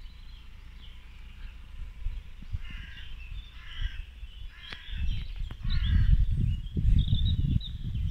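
Woodland birds calling: two striped calls, about three seconds apart, and small chirps near the end. From about five seconds in, low, irregular thudding footsteps on the woodland floor become the loudest sound.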